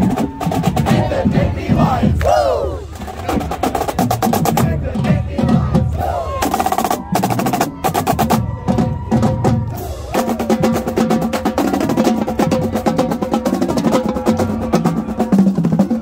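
Marching band drumline playing a cadence: rapid snare drum strokes and rolls over bass drum beats, with shouting voices over it in the first few seconds.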